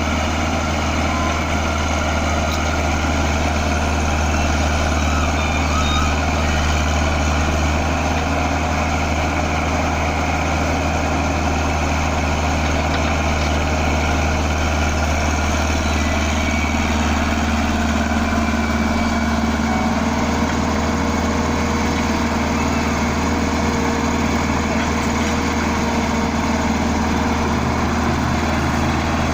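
Komatsu PC60 excavator's diesel engine running steadily with a deep, even hum; a higher steady tone joins about halfway through.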